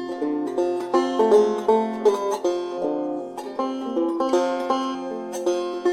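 Background music: an instrumental passage of a song, a quick run of plucked string notes with no singing.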